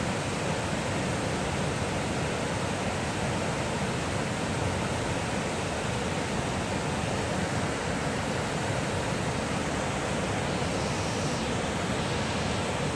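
A wide, multi-tiered cascade waterfall rushing steadily over rock ledges, an even, unbroken roar of falling water.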